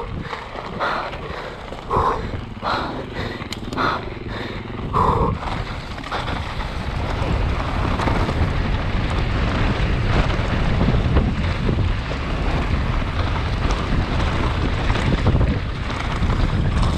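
Mountain bike descending fast over a loose rocky gravel track, its tyres rattling over stones, with wind buffeting the camera microphone. For the first five seconds short bursts come about once a second; after that the wind and tyre rumble thicken into a steady roar as speed builds.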